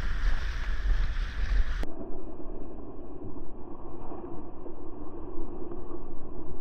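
Rushing, churning whitewater of a flooded river around a kayak's bow, a steady noise with no pitch. For the first two seconds wind buffets the microphone with a heavy low rumble; after that the rush turns abruptly duller.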